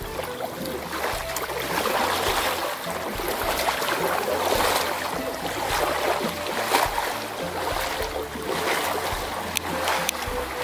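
A double-bladed kayak paddle splashing into shallow water with each stroke, water washing around a small inflatable catamaran as it moves off. The splashing swells and fades about once a second.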